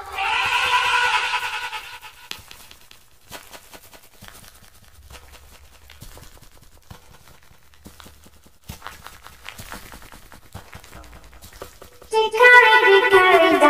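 Layered cartoon soundtrack audio. A warbling voice-like sound fades out over the first two seconds, then come several seconds of faint scattered clicks. About twelve seconds in, music comes in loudly with falling notes.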